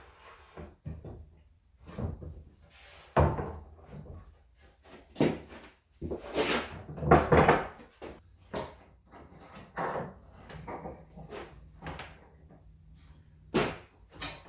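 Irregular wooden knocks and clunks with some scraping, like wood pieces and hand tools being handled and set down on a bench.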